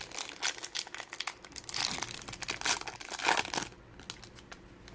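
Trading card pack wrapper being torn open and crinkled, a dense crackling that stops about three and a half seconds in.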